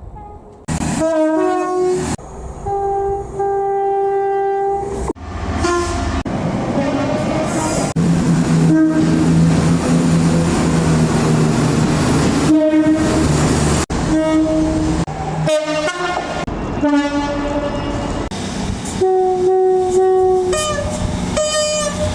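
British train horns sounding in a string of short, loud blasts cut back to back, several stepping between a low and a high note. In the middle a train passes close by with a loud rush of noise while its horn sounds.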